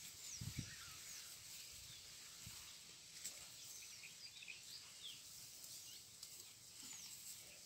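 Quiet outdoor ambience with faint, scattered chirps of distant birds. A couple of soft low thuds from handling leafy branches come in the first second.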